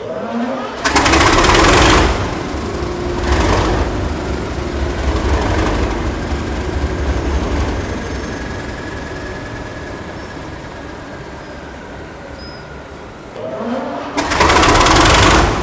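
English Electric diesel engine of class 37 locomotive 37884 being cranked and firing: a rising whine, a loud burst as it catches, then a running note that fades away over about ten seconds, before it is cranked and fires again near the end. The engine keeps dying after starting, a failed start-up.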